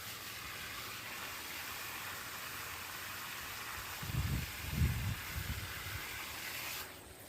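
Hose spray nozzle hissing as it sprays water, cutting off abruptly near the end, with a few low thuds a little past the middle.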